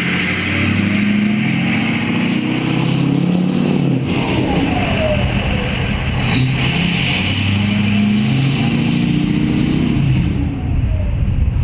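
Ford 6.0 Powerstroke V8 diesel running with a KC Turbos 10-blade turbo whistling high above the engine. The whistle climbs and falls twice as the turbo spools up and back down.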